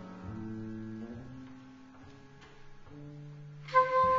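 Electric bass guitar playing a slow, quiet line of single held notes. Near the end a saxophone comes in loudly on a held note.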